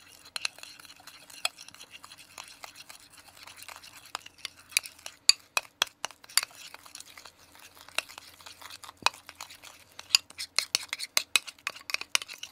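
Metal spoon stirring and scraping cake batter in a glass mixing bowl, with many sharp clinks of the spoon against the glass. The clinks come quicker and louder over the last couple of seconds.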